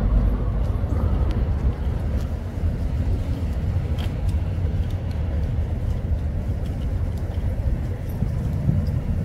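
Steady low rumble of motor vehicles, without clear pauses or changes.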